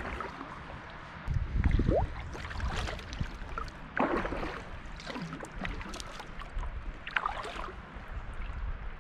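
Kayak paddle strokes dipping and splashing through the water at an irregular pace, with a heavier low rumbling thump about one and a half seconds in.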